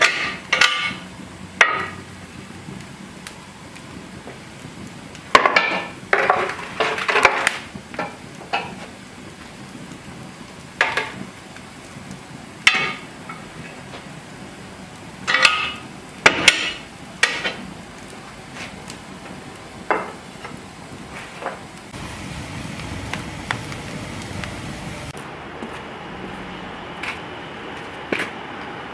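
Iron bake-oven door and tin baking pan clanking and scraping: a series of sharp, irregular metal knocks, some ringing briefly, as the pan goes into the oven and the door is worked and latched. Near the end the clanks stop and a steady outdoor background hum takes over.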